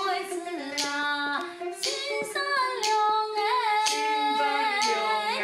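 A woman singing a Hakka five-line board mountain song (wujuban shan'ge) in long held, sliding notes, accompanied by a plucked long-necked Chinese lute, with sharp percussive knocks every second or so.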